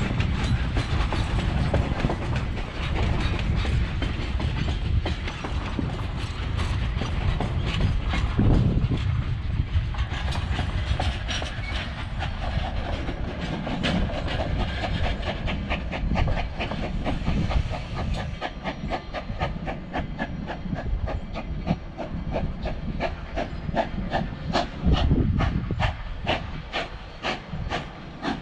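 Cumbres & Toltec narrow-gauge steam train rolling past, its coaches rumbling and clicking over the rails. In the second half the rumble eases and an even beat of about three a second carries on as the train draws away.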